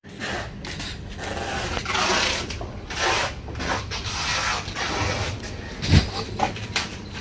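Rubbing and scraping as whole trevally are shifted against each other and the plastic fish crate, with a short low thump about six seconds in.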